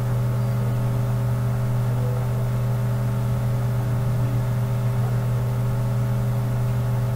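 A steady low motor hum that holds one even pitch throughout.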